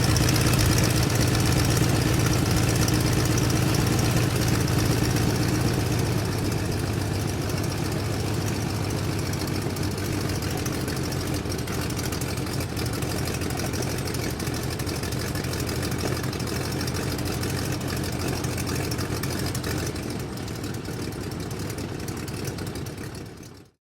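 Biplane engine running at a steady idle, slowly getting quieter, then cutting off suddenly near the end.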